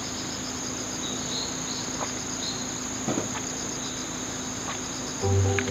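Insects trilling steadily in a high, continuous drone, with repeated short chirps over it. Background music comes in near the end.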